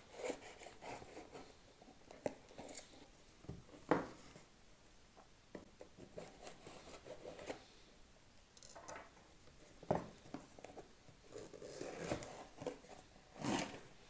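A knife slicing through packing tape on a cardboard box, with scraping and rubbing of the cardboard as the box is handled and its flaps opened. Irregular short scrapes and knocks, the loudest about 4, 10 and 13 seconds in.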